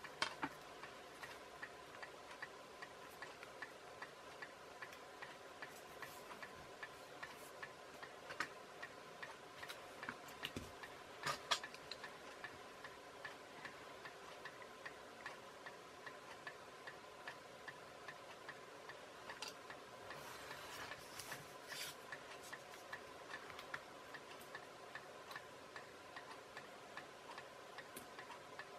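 Faint, even ticking like a clock, over a steady low hum, with a few sharper clicks, the loudest about eleven seconds in.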